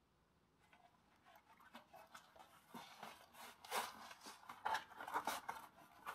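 Knobby CST Jack Rabbit bicycle tire being pushed onto its rim by hand: faint rubbing and scraping of the rubber bead against the rim in short, irregular scuffs that grow louder after the first second.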